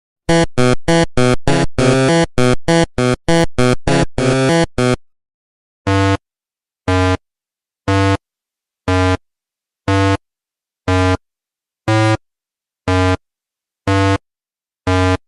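Electronic synthesizer tones: a quick run of about fifteen short notes, then ten identical short beeps about one a second.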